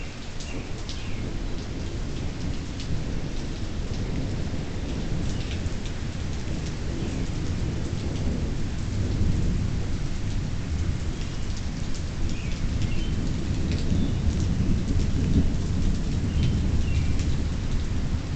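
Thunder rumbling low and long over steady rain, the rumble swelling louder about halfway through, with scattered raindrop ticks.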